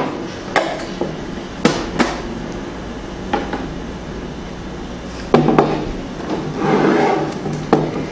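Irregular sharp plastic knocks and clacks from the acrylic panels of an LED photo light box as it is handled, lifted and set down on a table, with a brief rubbing scrape about two-thirds of the way through.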